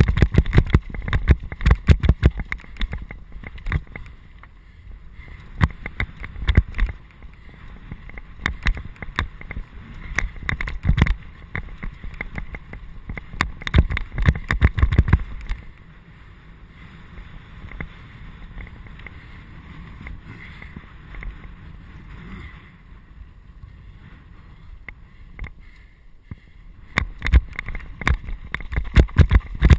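Mountain bike jolting and rattling over a rough, stony dirt trail, picked up by the bike-borne action camera as a dense clatter of knocks. It eases to a quieter, smoother run about halfway through and gets rough again near the end.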